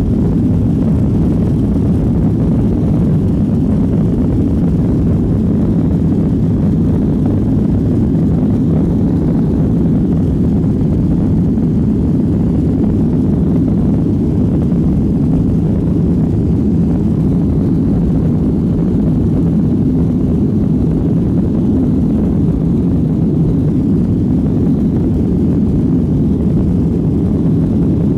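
Steady jet engine and airflow noise heard inside an airliner's cabin while it taxis, low and even with no change in pitch or loudness.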